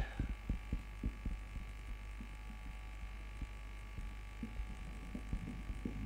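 Marker writing on a whiteboard: faint, irregular small taps and strokes over a steady electrical hum.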